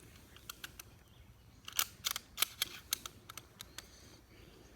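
Light metallic clicks and clacks from a GSG .22 pistol's action being worked by hand while it is checked after repeated jams. The clicks are scattered, bunching closely together about two seconds in.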